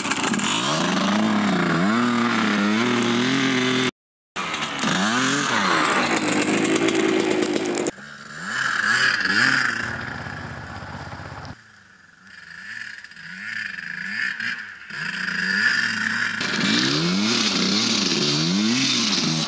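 1991 Husqvarna WMX 125 two-stroke dirt bike engine revving up and down over and over as the bike spins and slides in snow. The sound breaks off for a moment about four seconds in and is quieter and more distant through the middle.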